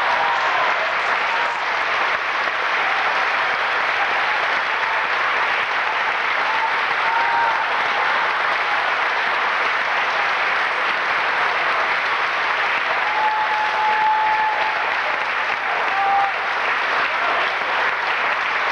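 Concert hall audience applauding steadily, the clapping starting as the final two-piano chord dies away.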